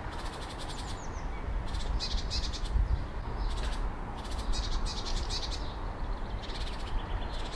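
Outdoor background of high-pitched bird chirps and trills in short runs that come and go, over a steady low rumble.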